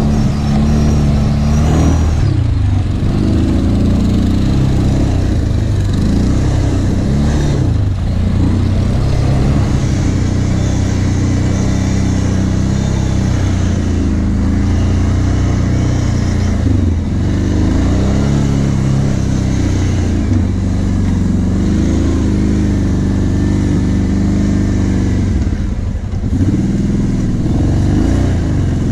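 Kawasaki Brute Force 750 ATV's V-twin engine running under the rider, its pitch rising and falling again and again as the throttle is opened and eased over rough offroad ground.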